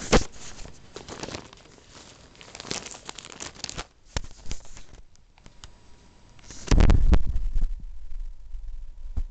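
Plastic bag of flaked coconut crinkling as it is handled, in several bursts over the first four seconds. About seven seconds in comes one loud, deep bump lasting under a second.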